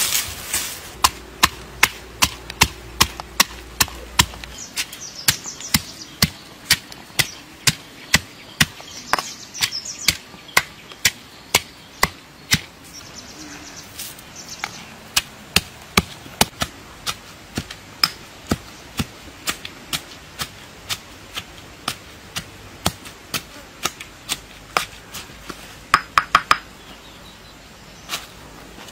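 Pestle pounding chili in a stone mortar: a long run of sharp strikes, about two a second, with a brief clatter near the end.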